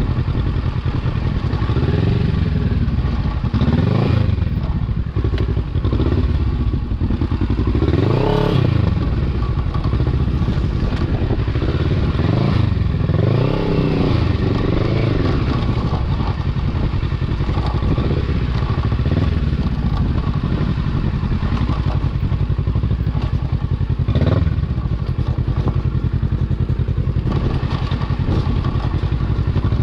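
Kawasaki Versys 650 parallel-twin engine pulling along a rough dirt trail, its revs rising and falling with the throttle several times in the first half. A few knocks and some clatter come from the bike jolting over ruts.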